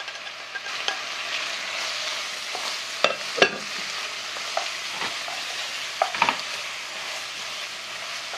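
Onion, green onion and carrot sizzling as they are stir-fried with meat and shrimp in a pan, while a wooden spatula scrapes and knocks against the pan. The loudest knocks come a little past three seconds in and again around six seconds in.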